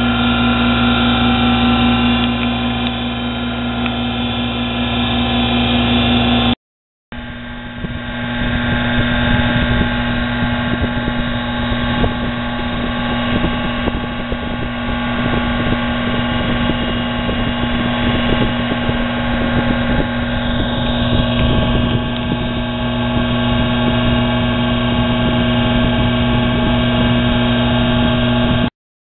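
A 1 HP treadmill permanent-magnet DC motor running steadily, driving the nano lathe's spindle through a belt with a steady whine. The sound cuts out briefly about seven seconds in and then carries on.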